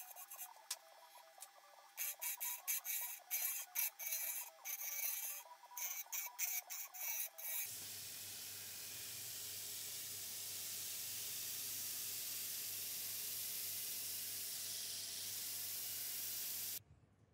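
Wood lathe turning a wooden spindle. A turning chisel cuts the spinning wood in a run of short scraping strokes. About eight seconds in, sandpaper held against the spinning workpiece gives a steady hiss over the low hum of the lathe, and this stops abruptly near the end.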